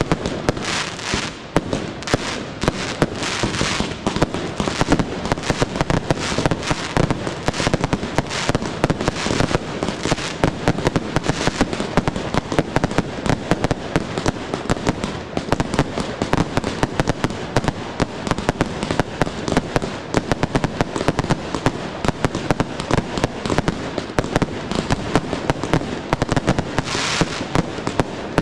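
Aerial fireworks launching and bursting in a rapid, nearly continuous stream of sharp bangs and crackles.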